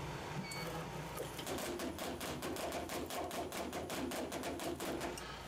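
DigiFlex ProCut EZ semi-rotary label die-cutter running a job: a fast, even clatter of cutting strokes, about five a second, starting about a second in and stopping shortly before the end. A short beep sounds about half a second in.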